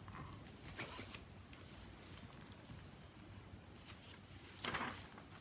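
Faint paper rustles from a hardcover picture book being handled and its page turned: a couple of soft rustles about a second in and a louder one near the end.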